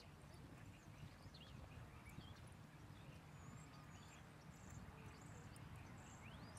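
Near silence: quiet outdoor background with a low steady rumble and a few faint high chirps.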